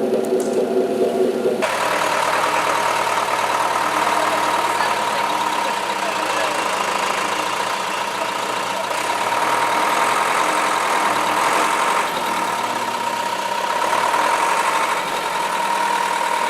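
Motor vehicle engine running steadily, with a constant whine over a dense mechanical noise; a different humming sound gives way to it abruptly about a second and a half in.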